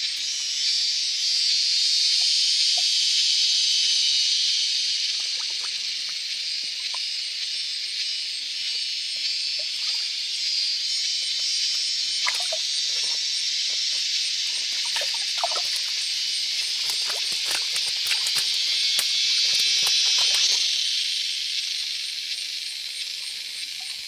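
High, steady hiss of forest and shallow-stream ambience, swelling louder near the start and again about twenty seconds in. Small splashes and clicks from hands handling a fish in the water come through in the second half.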